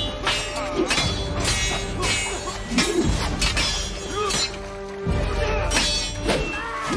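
Swords clashing in a duel: a series of sharp metallic clangs that ring on, about one every half second to second, with a lull about five seconds in, over film music.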